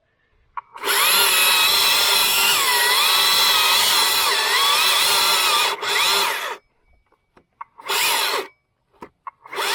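Husqvarna T542i battery top-handle chainsaw cutting through wood. Its motor whine wavers in pitch as the chain bogs and recovers under load, runs for about six seconds, then gives two short bursts near the end.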